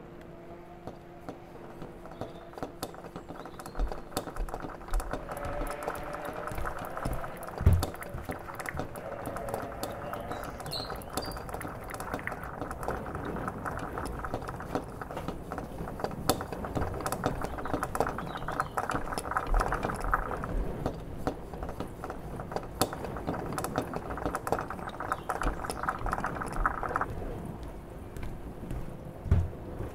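Experimental sound collage: a steady low hum under dense clicking and crackling, with a layer of mid-range noise that cuts off suddenly near the end and a couple of heavy thumps.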